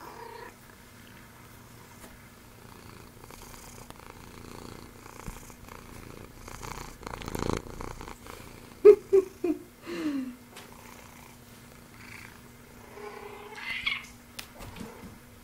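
Domestic cat purring close to the microphone, with a brushing noise as it pushes its face against the camera. About nine seconds in it gives four short calls in quick succession, the last falling in pitch, and another call comes near the end.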